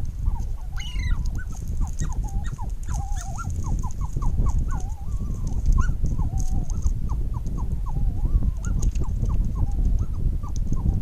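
Wild birds giving a long run of short, repeated calls, about three a second, some with a quick rising or falling note, over a steady low wind rumble.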